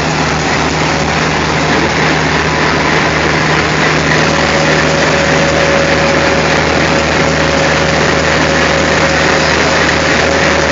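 Diesel-electric locomotive engine running steadily with a deep, even hum. A thin steady whine joins about four seconds in.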